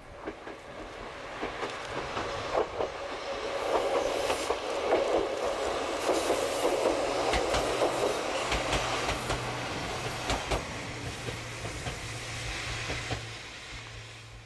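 Choshi Electric Railway 2000-series two-car electric train passing, its wheels clicking over the rail joints. It grows louder as it approaches, peaks mid-way, then fades as it moves off, with a low steady hum under the second half.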